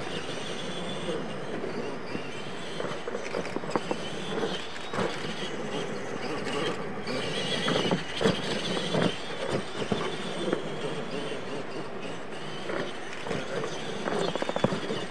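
Radio-controlled monster trucks running on a dirt track: electric motors whining and tyres scrabbling over the dirt, with a series of short knocks as the trucks bump over and land off the ramps.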